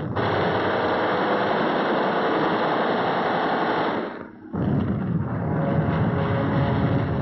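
Propeller aircraft engines droning with a steady rushing noise. The sound breaks off briefly about four seconds in and comes back with a deeper rumble.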